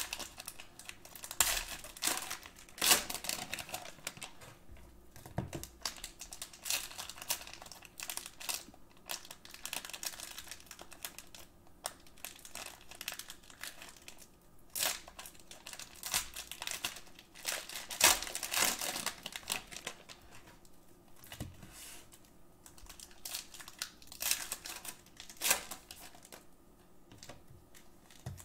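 Plastic wrappers of trading-card cello packs crinkling and crackling in irregular bursts as the packs are handled and torn open by hand.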